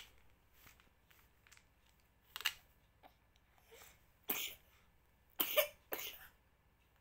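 A young child coughing with a cold: single short coughs about two and four seconds in, then two more close together near the end.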